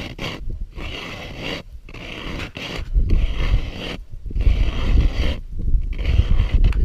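Hand-cranked ice auger's blades grinding and scraping through thick lake ice, in stretches of cranking broken by brief pauses.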